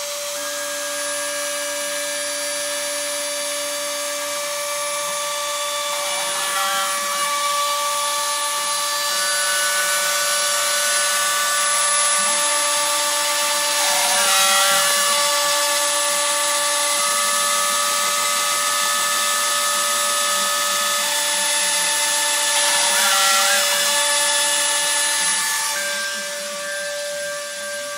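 A Dremel rotary tool on a homemade CNC router whines steadily as its bit cuts circles into the sheet, with a hiss from the cutting. Over it the stepper motors sing as steady tones that jump to a new pitch every few seconds as the axes change speed and direction. The cutting hiss eases near the end.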